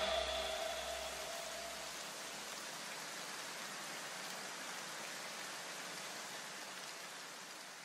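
A soft, even hiss, like light rain or static, that slowly fades out near the end. The last low notes of the music die away in the first two seconds or so.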